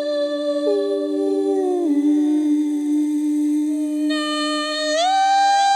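Music of long, steady held notes in several layered parts. One part slides down in pitch about two seconds in, and several slide up together near the end.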